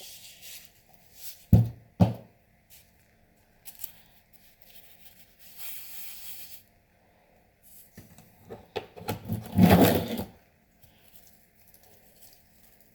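Tabletop handling of slime-making materials: two sharp knocks about a second and a half and two seconds in, a short hiss around six seconds, and a louder scraping rustle near ten seconds.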